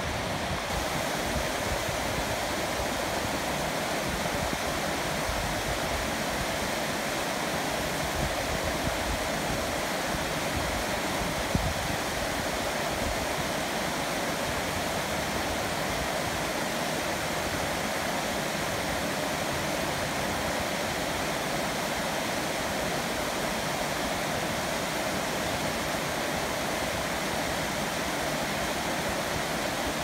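Shallow stream water running steadily in a thin sheet over a flat, ridged rock bed, rippling over the small ledges.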